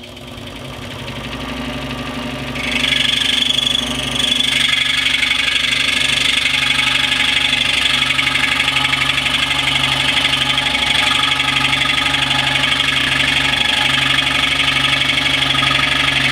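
Scroll saw running, its blade reciprocating with a steady fine buzz; about two and a half seconds in the blade bites into the wooden board and a louder, higher rasp of the cut takes over and holds steady, with a brief dip near four seconds.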